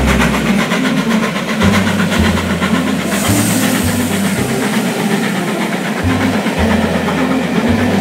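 Recorded train running past on the rails, a steady loud rumble and rattle with a hiss rising in the upper range about three seconds in. It starts and cuts off abruptly.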